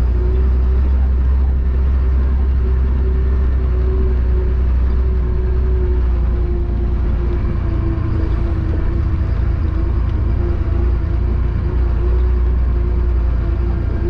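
Chenglong concrete mixer truck driving, heard from inside its cab: a steady deep rumble with a constant hum above it, unchanging throughout.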